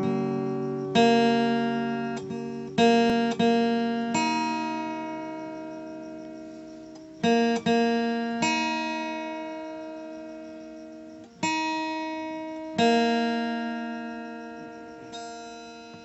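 Slow, calm background music: plucked guitar chords struck every one to three seconds, each left to ring and fade slowly.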